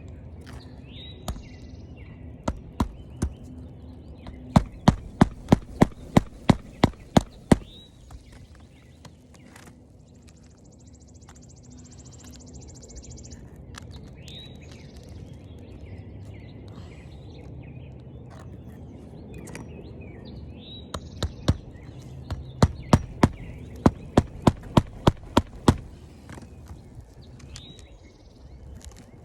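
Claw hammer driving roofing nails flush into asphalt shingles: two runs of about a dozen sharp strikes each, roughly three a second, one a few seconds in and one past the middle. Birds chirp faintly in between.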